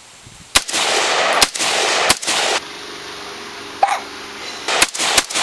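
AR-15 rifle shots: sharp cracks about a second apart over a loud rushing noise that cuts off suddenly. A single short squeak like a baby's hiccup follows, then a quick run of three shots near the end.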